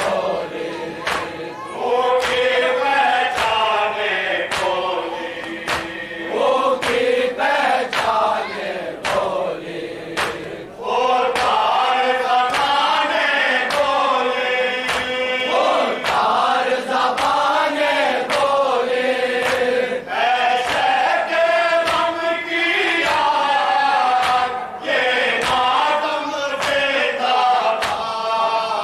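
A group of men chanting an Urdu noha in unison behind a lead reciter on a microphone, over a steady beat of matam, hands striking chests a bit under two times a second.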